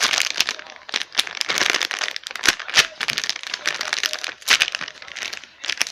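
Packaging of a squishy toy crinkling and rustling as it is handled, with many sharp crackles throughout.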